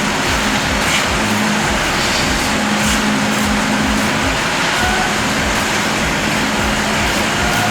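Steady engine or machine noise, with a low hum that comes and goes.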